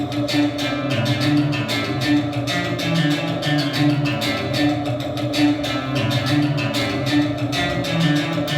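Music: a fast, evenly repeated plucked-string figure, guitar-like, over sustained lower notes.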